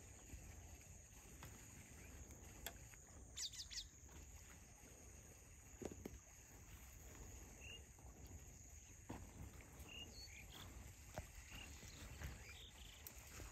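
Near-silent outdoor ambience: a faint low rumble, a thin steady high hum, and a few short, faint bird chirps scattered through.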